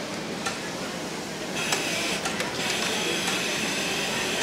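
Juki MO-6700 series five-thread overlock machine sewing a seam: its running noise picks up to a steady, high-speed whir about a second and a half in, with a few light clicks.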